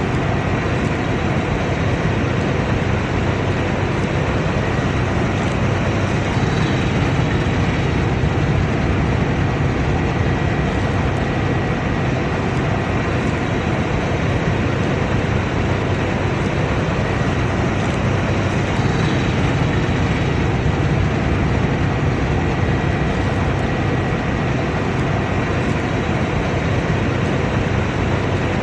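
Combine harvester running steadily at work, a constant loud engine and machinery drone with a faint high whine over it.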